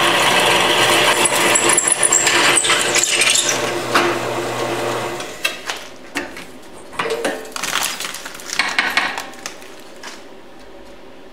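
Drill press motor running steadily as its bit cuts into a metal plate held in a drill press vise, stopping about five seconds in. Then clinks and rattles of metal chips and the plate being handled in the vise.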